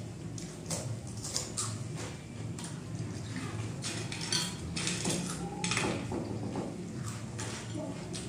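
Kurkure corn snacks being eaten fast from steel plates: irregular crisp crunches, with clinks and scrapes of a spoon and fingers on the metal plates.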